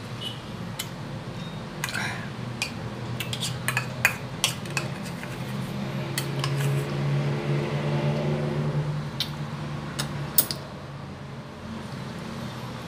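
Metal spoon clinking against a dish during eating: a run of sharp clinks, thickest a few seconds in, and a few more near the end. A steady low hum sounds for several seconds in the middle.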